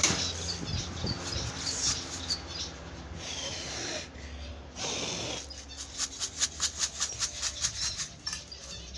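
Handling noises from cleaning and refilling a cage of small pet birds' seed dishes: rustling, a breathy blow about halfway through, then a quick run of sharp clicks and taps, over a low steady hum.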